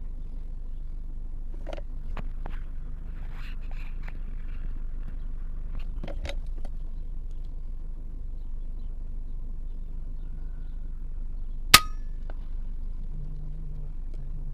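A single scoped rifle shot about two-thirds of the way in: one sharp crack with a brief metallic ring after it, over a low steady rumble and a few faint handling clicks.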